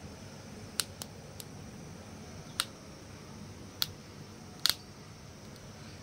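Six or so short, sharp clicks at uneven intervals, the last a quick double click, over a low steady hum.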